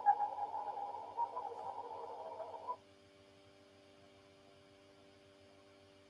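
Radio-like static from a 'sound of space' recording: a crackling hiss held in a narrow mid-pitched band, which cuts off abruptly about three seconds in, leaving only a faint steady hum.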